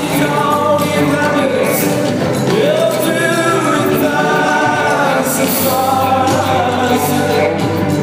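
Live band music: the instrumental opening of a song, with a sustained, gliding melodic line over the band.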